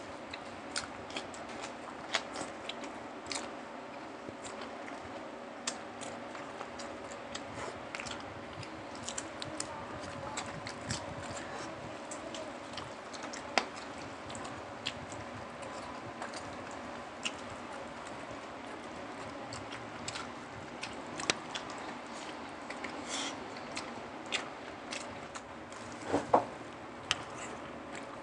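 Two people eating pork hock kare-kare and rice with their hands, close to the microphone: chewing and lip smacks heard as scattered sharp clicks, with a louder smack near the end, over a faint steady hum.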